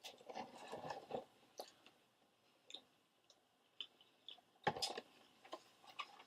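A person chewing a mouthful of General Tso's chicken, faint wet mouth clicks and smacks. They come in a short run in the first second and again about five seconds in.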